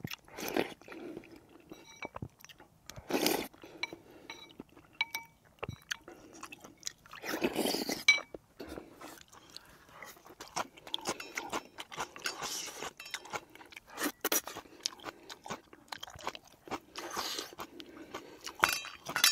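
Close-up eating sounds: chewing and crunching, with a few louder slurps of rice-cake soup (tteokguk) from a spoon.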